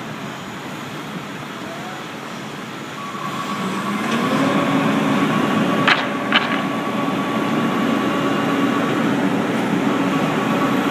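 Fire department aerial ladder truck setting up, its outriggers extending: about three seconds in the engine and hydraulics rise in pitch to a steady whine over a low hum. Two sharp knocks come close together about six seconds in.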